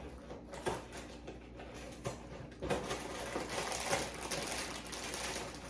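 Dry cereal rattling as it is poured and shaken from its packaging into a bowl. A few faint clicks, then a dense patter that starts suddenly about halfway through and keeps going.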